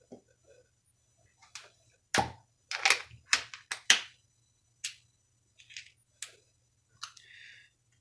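Sharp clicks and taps of small carburetor parts and tools being handled during reassembly. There is a quick cluster from about two to four seconds in, then a few scattered clicks and a brief scrape near the end.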